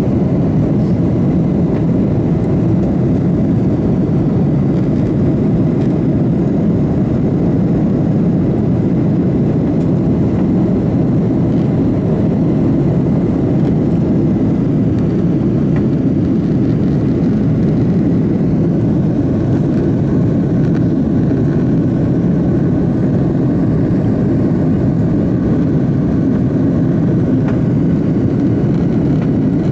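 Cabin noise of a Boeing 737 jetliner climbing after takeoff: a steady, loud low rumble of the engines at climb power and air rushing past the fuselage.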